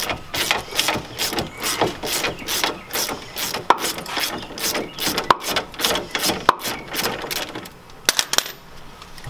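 Ratchet wrench clicking in quick repeated back-and-forth strokes, about two to three a second, turning a nut off the sway bar end link at the front strut. A few sharper clicks stand out among the strokes.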